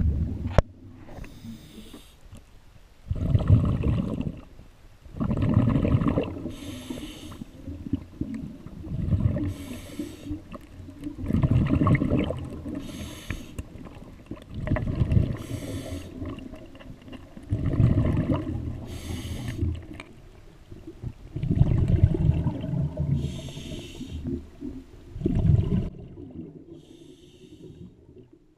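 A scuba diver breathing through an open-circuit regulator underwater. Exhaled bubbles rumble out about eight times, every three to four seconds, with the thinner hiss of each inhalation between.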